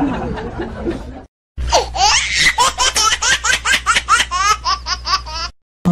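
A child's high-pitched laughter in quick repeated bursts, about four a second. It comes after a moment's silence and stops just before the end.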